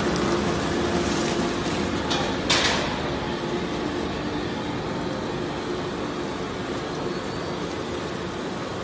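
Industrial waste shredder and discharge conveyor running with a steady mechanical drone, with a single sharp crack about two and a half seconds in.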